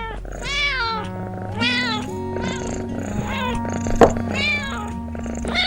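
A cat meowing repeatedly, about six short meows that rise and fall in pitch, over background music. One sharp click or knock about four seconds in.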